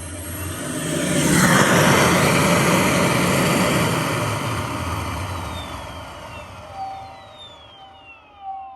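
12 V Thrust electric compressor spinning up to a loud rush of air about a second in, then winding down, its whine falling in pitch over the last few seconds.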